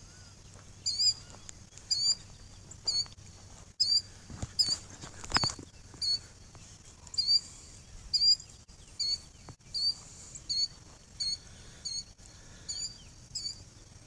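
A bird calling over and over in short, high chirps, one or two a second, scolding as though disturbed by people close by.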